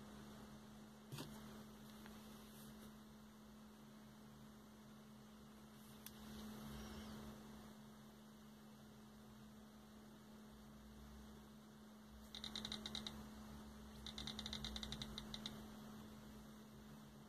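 Near silence with a faint steady hum. About three-quarters of the way through come two short runs of rapid soft ticks from a phone's scrolling picker wheel.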